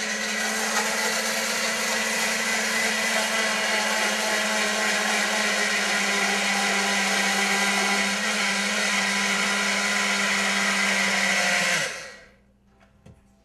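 Electric blender running steadily as it mixes a protein shake, then switched off about twelve seconds in and winding down.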